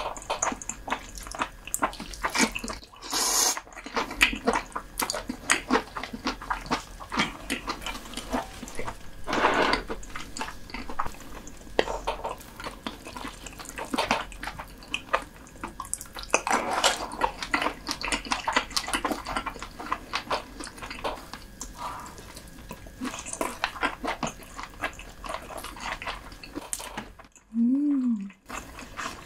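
Close-miked wet chewing and sucking of soy-sauce-marinated raw lobster meat: a dense run of sticky mouth clicks and smacks, with a few longer sucking noises about three and ten seconds in. A short low hum rises and falls near the end.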